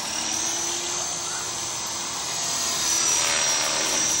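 450-size radio-controlled model helicopter in flight: a steady high-pitched rotor and motor whine that dips slightly in pitch and climbs again near the end.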